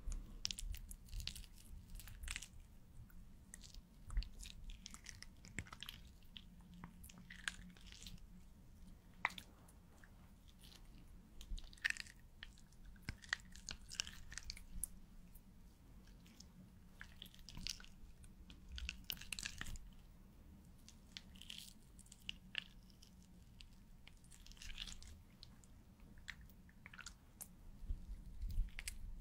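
Fine-tipped pen writing close to the microphone: quiet groups of crisp, scratchy strokes every second or two, with short pauses between them.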